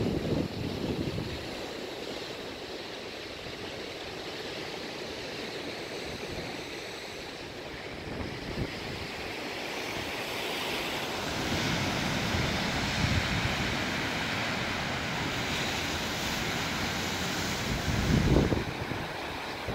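Sea surf breaking on a rocky shore, a steady rushing hiss that grows louder through the second half, mixed with wind on the microphone: low buffeting at the start and a strong gust near the end.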